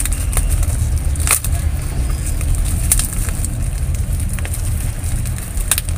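Plastic wrapping crinkling as it is handled, with a few sharp crackles, over a steady low rumble.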